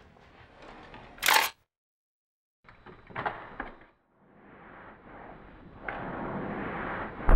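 A camera shutter fires once, a sharp click about a second in. The sound then drops out completely for about a second, followed by a few faint knocks and a rushing noise that grows louder toward the end.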